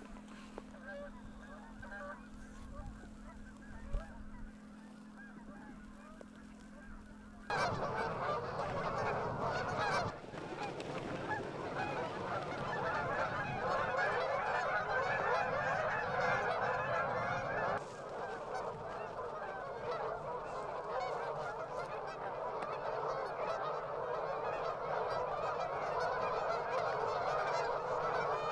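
A flock of geese honking, many birds calling at once in a dense, continuous din. For the first few seconds the calling is faint over a steady low hum; then it cuts abruptly to a much louder, closer chorus.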